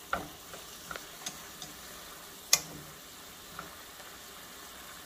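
Stir-fry sizzling steadily in a hot pan, with a few sharp clicks. The loudest click comes about two and a half seconds in.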